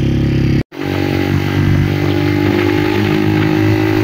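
Motorcycle engine running at a steady speed while riding, with road and wind noise. The sound drops out for an instant less than a second in, then carries on.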